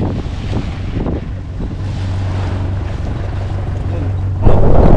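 Fishing boat's engine running with a steady low hum under heavy wind buffeting the microphone; the wind noise jumps sharply louder about four and a half seconds in.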